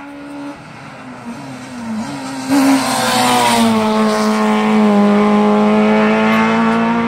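Hillclimb race car at full throttle coming up the road and passing close by. The engine grows louder, jumps sharply about two and a half seconds in, drops in pitch as it goes by, then holds a steady loud note.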